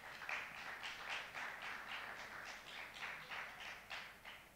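Light applause from a small audience, dying away near the end.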